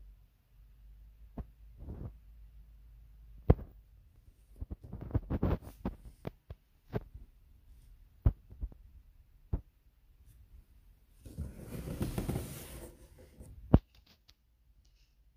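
Handling noise from a cardboard product box being turned over in the hands: scattered sharp knocks and clicks, and late on a rubbing scrape lasting about two seconds.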